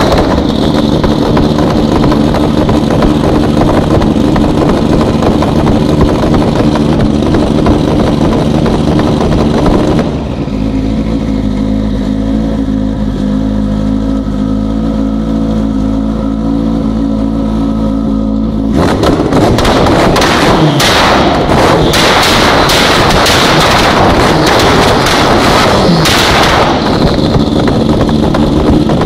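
Ford RS200's turbocharged 2.4-litre BDT-E four-cylinder engine running with its anti-lag system active, crackling and popping sharply from the exhaust. About ten seconds in it settles to a steadier idle for some eight seconds, then the crackling resumes.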